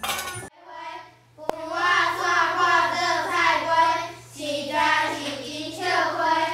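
A young girl reading aloud from a picture book in a high, sing-song voice, drawing out the syllables, over a steady low hum. A brief burst of noise comes at the very start.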